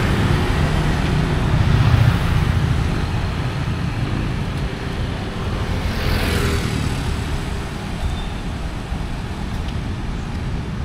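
Road traffic passing close by: a low engine rumble that is loudest about two seconds in and then eases off, with another brief whoosh of a passing vehicle about six seconds in.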